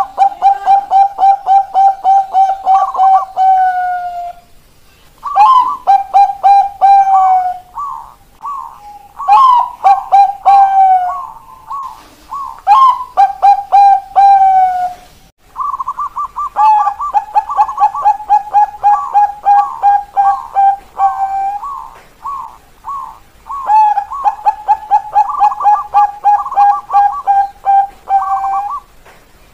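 Perkutut Bangkok (Thai-bred zebra doves) singing the 'keok kok kok kok' song: phrases of rapid short coos, about four a second, each opening on a higher note, with short pauses between them.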